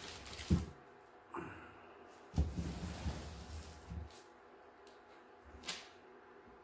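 Long plastic-lined soap loaf molds, heavy with setting soap, being shifted and slid across a countertop. A knock comes about half a second in, then a scraping slide lasting a second or two, and a light tap near the end.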